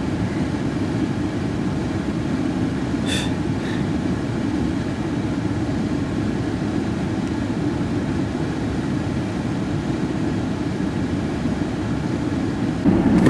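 Motor vehicle running, a steady low rumble with no change in level, and a brief faint higher sound about three seconds in.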